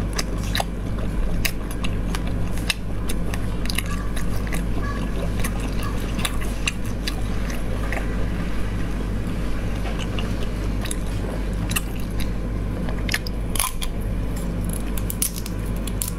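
Close-up eating sounds of sea snails in sauce being sucked from their shells and chewed: many sharp wet clicks and smacks, over a steady low hum.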